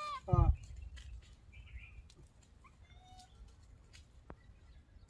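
High-pitched animal squeaks and chirps: a loud falling squeal right at the start, then a few faint short chirps, and a single sharp click about four seconds in.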